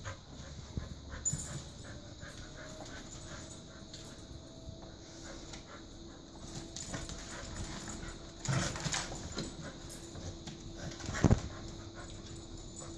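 Two dogs, an Australian Shepherd and a golden retriever, playing tug-of-war with a rope toy: panting, scuffling and claws on the floor. One sharp knock near the end is the loudest sound.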